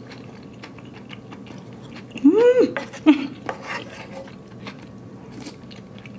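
A person chewing a mouthful of hot pot udon noodles, with many small wet clicks and smacks. About two seconds in comes a short closed-mouth hum that rises and then falls in pitch, followed by a brief second vocal sound.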